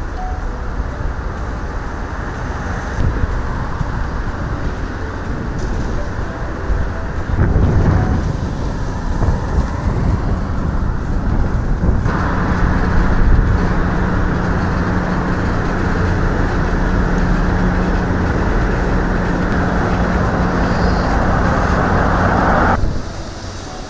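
Steady rushing outdoor noise, of the kind road traffic makes, with a low steady hum joining about halfway through and stopping shortly before the end.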